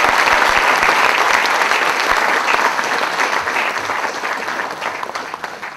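Audience applauding, a dense patter of many hands clapping that gradually dies away toward the end.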